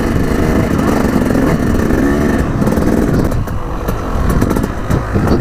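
Dirt bike engine running under throttle while riding a rough trail, its pitch wavering as the rider works the throttle, with scattered clicks and knocks from the ride.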